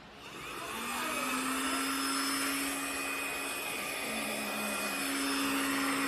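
Handheld cordless UV dust-mite vacuum cleaner switching on, its motor spinning up over about a second, then running steadily with a high whine over a low hum.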